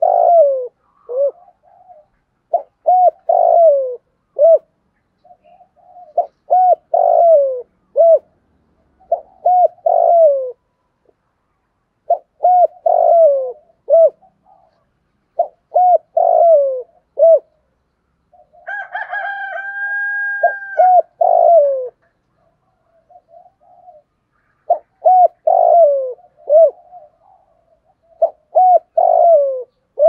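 Spotted dove cooing in repeated phrases about every three to four seconds, each a few short notes followed by a longer falling coo. This is a call-bird's cooing, used to draw wild doves. About two-thirds of the way through, a steady whistle-like tone lasts about two seconds under one of the phrases.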